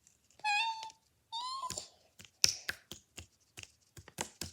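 Two short, high-pitched, meow-like cries, then a run of irregular sticky clicks and pops as slime is squeezed and pulled apart.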